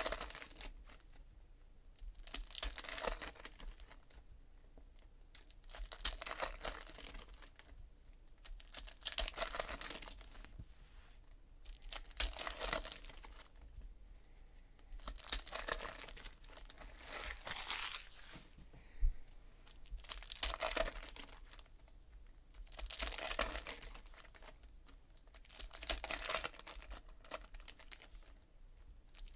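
Foil wrappers of 2017 Donruss Optic baseball card packs being torn open and crinkled by hand, one pack after another. There is a burst of tearing and crinkling about every three seconds.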